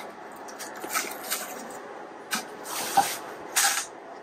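Parcel tape being cut and pulled off a cardboard box and the flaps folded open: a few light clicks and scrapes, then two longer tearing, rustling sounds about three seconds in.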